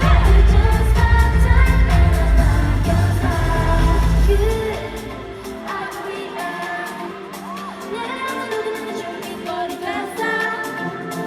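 K-pop girl group singing live over a pop backing track. The heavy bass drops out about four and a half seconds in, leaving the voices over lighter accompaniment.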